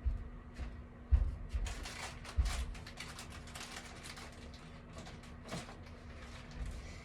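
Handling noises: irregular rustling and clicks, with a few dull thumps in the first few seconds, over a faint steady hum.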